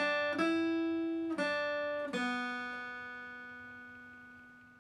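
Acoustic guitar playing single picked notes on the top two strings, picked with downstrokes only, the melody stepping down in pitch. About two seconds in, the last note, the open second string, is struck and left to ring out, fading away.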